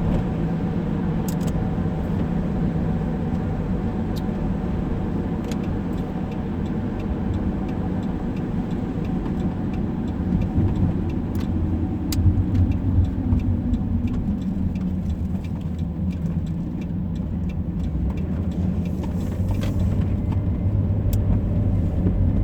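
Car interior noise while driving on a wet road in the rain: a steady engine and tyre rumble with scattered light ticks. About halfway through, the engine note falls in pitch.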